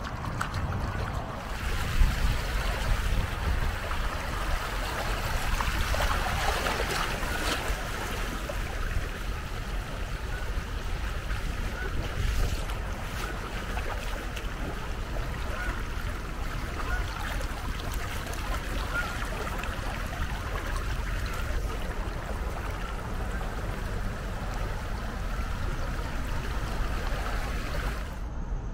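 Steady rush of the flooded Schuylkill River's muddy water, with wind buffeting the microphone; it cuts off suddenly just before the end.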